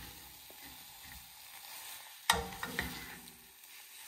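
Metal utensils stirring and scraping scrambled eggs in a small metal saucepan, with a faint sizzle. About two seconds in, a sharp metallic clank of utensil on pan rings briefly.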